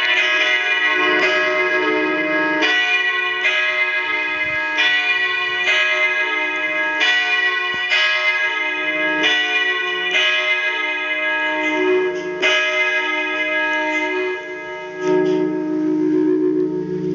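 Church bells ringing two at a time, struck roughly once a second, their tones overlapping and ringing on between strikes. Near the end the strikes stop and a lower hum lingers.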